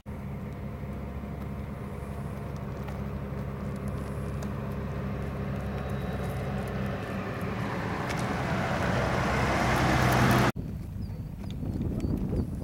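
An engine running steadily. It grows louder over about ten seconds as if coming closer, then cuts off suddenly.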